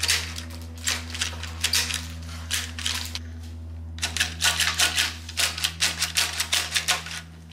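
Rapid, irregular plastic clicking and clacking from the thumb buttons of two Akedo battle controllers being hammered, which make the mounted mini warrior figures swing their arms and strike each other. There is a pause of about a second a little past halfway, and a steady low hum runs underneath.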